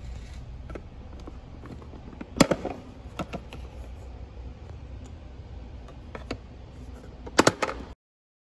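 Plastic lid of a Gen-U-Bin storage bin on a scooter being flipped open and snapped shut by hand: a sharp click about two and a half seconds in, a few lighter taps, and a quick double snap near the end, over a low background rumble.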